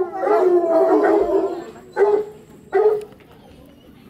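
A pack of Cheverny hounds (English foxhound and Poitevin crosses) baying and howling together, several voices overlapping at once. About two seconds in, the chorus breaks into two short single bays, and after that it drops quieter.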